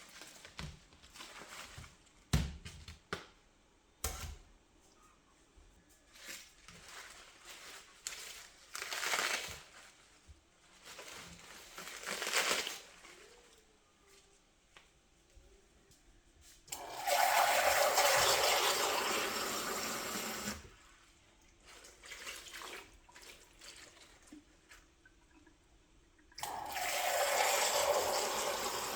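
Water running from a kitchen tap, in two spells of a few seconds each, about halfway through and again near the end. Before these, light knocks and clatters of things being handled and set down.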